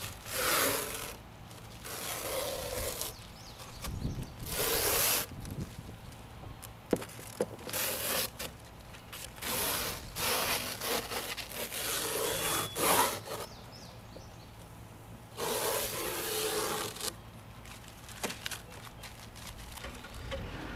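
Adhesive tape being peeled off a foam pool-coping form in strips: a run of rasping rips about a second long each, coming every second or two, with a pause in the middle.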